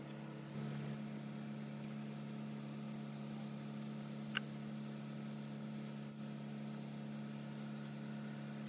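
A steady, even machine hum with a slight rise in level about half a second in, and a single short high click a little past the middle.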